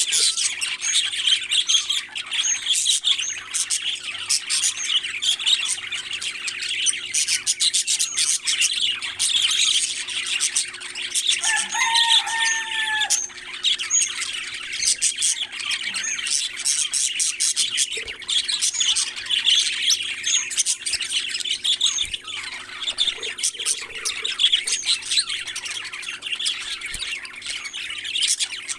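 Parrots chirping and chattering continuously, a dense run of rapid calls, with one clearer drawn-out whistled call about twelve seconds in. A faint steady hum runs underneath.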